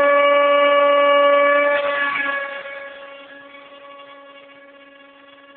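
Beta 1400 RC motor glider's electric motor and propeller running at full throttle with a steady high whine. About two seconds in, the pitch drops slightly and the sound fades as the glider is launched and flies away.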